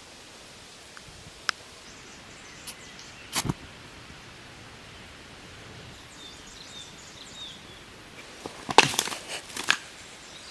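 Occasional sharp snaps and clicks over a steady outdoor background noise, with a cluster of louder snaps near the end. Faint short high chirps come in the middle.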